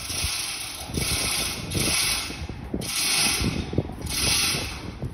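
Manual chain hoist (chain fall) being worked under the weight of the boat: the hand chain rattles through the hoist in repeated pulls about once a second, with ratcheting clicks.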